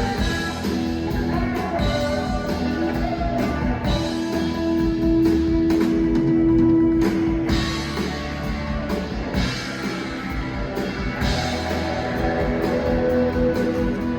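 Rock band playing an instrumental passage, electric guitar over a drum kit, with one guitar note held for about four seconds midway.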